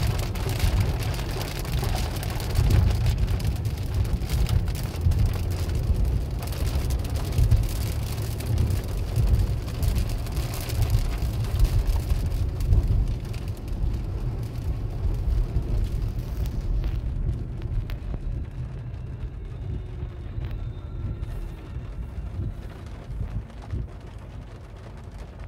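Heavy rain pattering on a car's windshield and roof, heard from inside the cabin over the low rumble of the moving car. About two-thirds of the way through, the pattering hiss drops away and mostly the low rumble remains.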